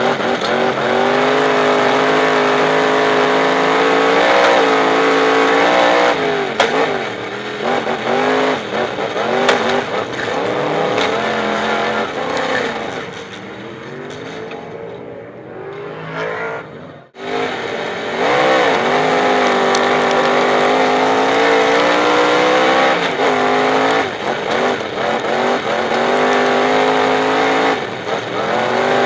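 Superstock race car's V8 engine heard from inside the cockpit, running hard and rising and falling in pitch as the driver accelerates and lifts around the dirt oval. About twelve seconds in it settles to a quieter, lower run for a few seconds and cuts out abruptly for an instant about seventeen seconds in. It then comes back at full revs.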